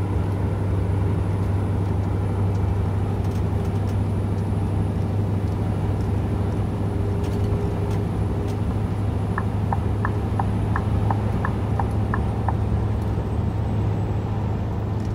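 Scania R730's 16-litre V8 diesel running steadily under full throttle up a hill, its pitch holding even. About nine and a half seconds in, a run of light, regular clicks comes at about four a second for some three seconds.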